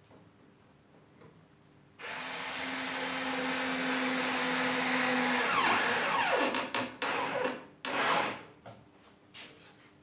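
Homemade disc sander driven by a washing-machine motor, switched on about two seconds in and running with a steady hum and a rushing noise. After a few seconds it is switched off and winds down, falling in pitch, with a few short rasping bursts before it stops.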